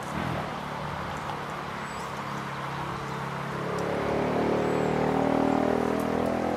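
An engine running steadily, getting louder from about halfway through.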